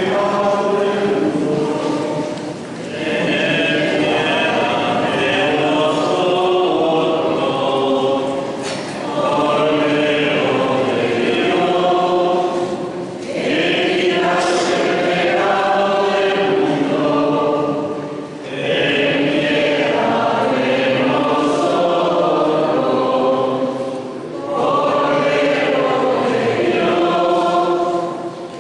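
A choir singing a church hymn in phrases of about five seconds, with short breaks between them.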